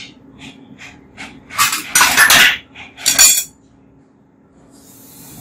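Metal ladle clinking and scraping against a clay pot while stirring a braise: a few light clicks, then two louder stretches of scraping in the middle, then quiet.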